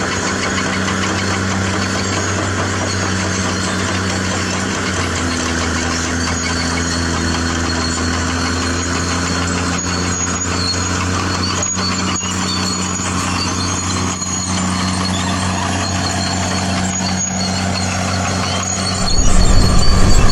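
Truck engine sound from a radio-controlled model truck, running steadily, with a shift in pitch about five seconds in. It suddenly gets much louder about a second before the end.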